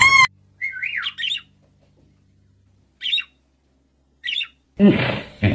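Three short, thin chirping calls of a green Amazon parrot, spaced a second or two apart. It opens with the end of a loud high-pitched squeal, and near the end a louder, busier stretch of sound cuts in.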